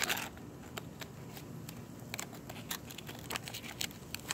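Pliers clicking and crackling as they grip and tear at the metal casing and foil of a dismantled lithium-ion battery: many sharp, irregular clicks, with a louder burst right at the start.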